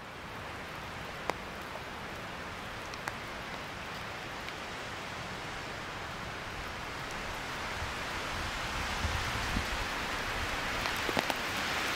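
Steady hiss of rain falling in a conifer forest, growing a little louder toward the end, with a few sharp ticks.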